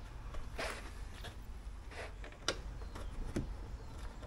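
A few scattered light clicks and taps of hands fitting a plastic number-plate light into a motorhome's rear bumper, over a faint low background rumble.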